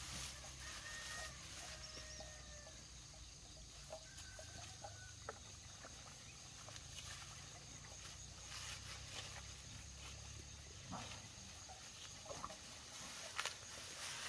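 Faint animal calls: a few short, flat whistle-like notes in the first few seconds, over a low steady hum that fades out about eleven seconds in. Scattered light clicks and ticks, a little louder near the end.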